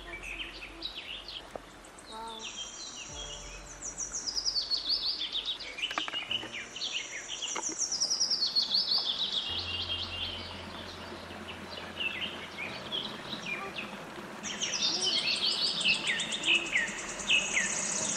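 Birds singing in fast runs of high, quick chirps, many sliding down in pitch, coming in spells with the busiest stretches in the middle and near the end.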